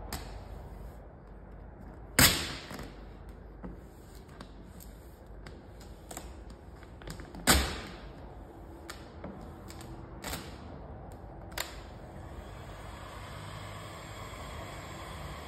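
Vinyl wrap film being handled and stretched by hand, rustling, with two sharp snaps and a few lighter clicks. In the last few seconds a heat gun runs with a faint steady whir.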